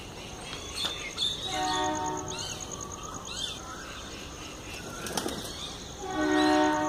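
A horn sounds two short steady blasts of a low chord, about a second and a half in and again near the end. Small birds chirp in between.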